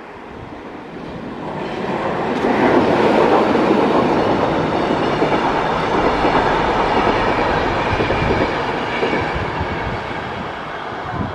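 Passenger train hauled by an electric locomotive passing through a station. The running noise of its wheels on the rails grows over the first couple of seconds, holds steady as the coaches go by, and fades near the end as the train moves away.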